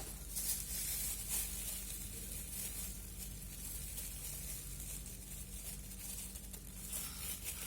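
Faint crinkling and light handling of plastic-bagged phone holders, with a few soft ticks, over a steady low hum.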